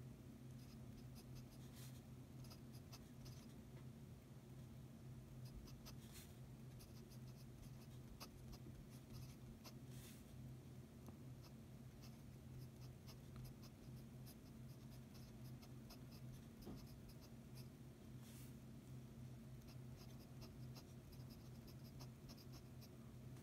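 Fountain pen nib scratching faintly on paper in many quick, short strokes as handwritten Korean characters are formed, over a steady low hum.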